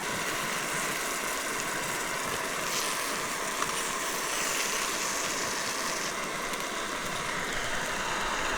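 Steak, eggs and potatoes frying in a pan, a steady sizzling hiss.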